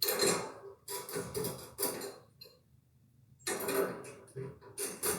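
Nuts being threaded by hand onto a metal U-bolt, small metal parts clinking and rattling in short bursts, with a pause of about a second in the middle.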